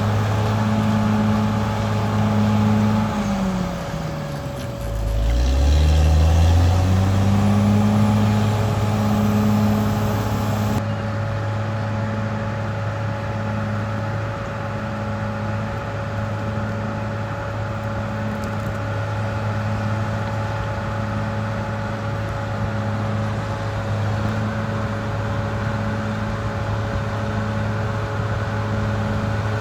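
Caterpillar D6R XL bulldozer's diesel engine running steadily. About three seconds in, its engine speed drops deeply and then climbs back within a few seconds.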